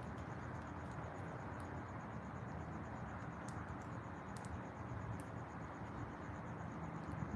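Outdoor nature ambience: an insect trills steadily in short even pulses over a steady low background rush, with a few brief high chirps or ticks in the middle.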